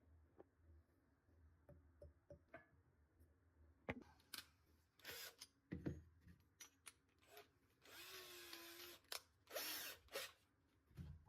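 Power drill run in short bursts, the longest about a second, with clicks and knocks of handling in between.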